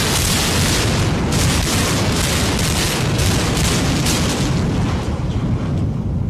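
Continuous rumbling roar of a multi-story building collapsing in a demolition implosion, debris crashing down as the structure falls, easing slightly near the end.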